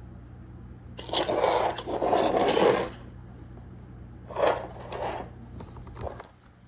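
Rough scraping and rubbing of garbage disposal mounting parts being handled: two long scrapes about a second in, then a shorter pair past the middle and a few light clicks, over a faint steady low hum.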